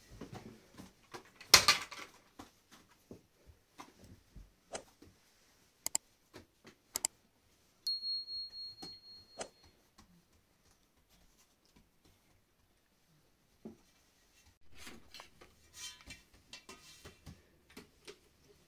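Scattered light clicks and taps of hand food preparation (grating, handling bowls and utensils), with one louder knock about a second and a half in as the stretched pizza dough is laid into a round metal pan. A brief steady high-pitched tone sounds around eight seconds in.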